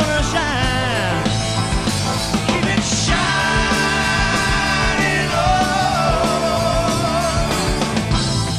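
Live rock band playing: an electric guitar lead with bent, sliding and wavering held notes over drums and bass.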